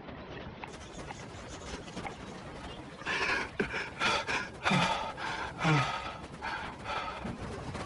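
A man gasping for breath. From about three seconds in come several loud, ragged pants, with a couple of short falling groans among them.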